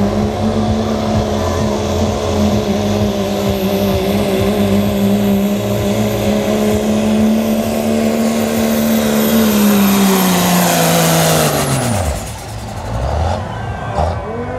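Cummins-powered diesel pickup pulling a sled at full throttle, its engine note held steady for about ten seconds, then dropping in pitch as it lets off and winds down. A high turbo whistle rides over it and falls away with the engine.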